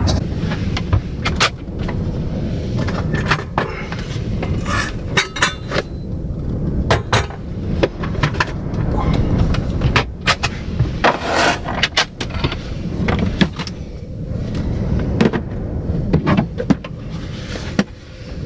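Near-storm-force blizzard wind buffeting a camper van, a loud, unsteady low rumble, with many sharp knocks and clicks scattered throughout.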